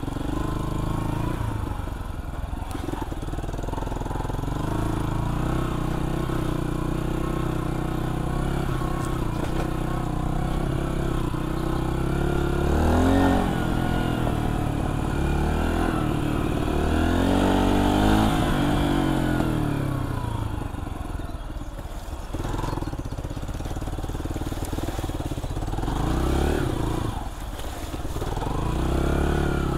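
AJS JSM 125 dirt bike's 125cc single-cylinder engine running under way on a dirt trail, its revs rising and falling several times as the throttle opens and closes.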